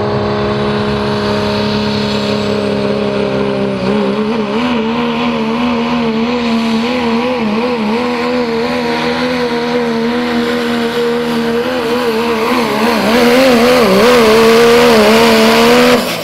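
Second-generation Dodge Ram diesel pickup's 5.9-litre Cummins straight-six running loud at steady revs, then pulling the sled at full load from about four seconds in. Its engine speed wavers up and down through the pull, and it grows louder near the end.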